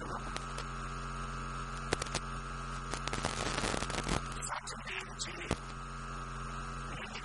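Steady electrical mains hum with its overtones from the recording's sound system, with a higher steady whine above it. Scattered small clicks and crackles come through, most around the middle.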